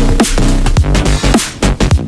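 Electronic music with a fast drum beat and deep bass, in a drum-and-bass style.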